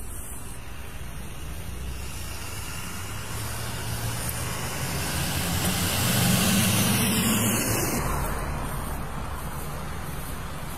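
Road traffic passing on a multi-lane street: a pickup truck towing a small trailer drives by, its engine and tyre noise growing louder to a peak about six seconds in, then fading.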